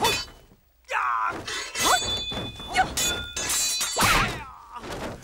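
Staged sword-fight sound effects: a rapid string of hits and thuds, with metal blades clanging and ringing on after a strike about two seconds in, and short shouts and grunts from the fighters.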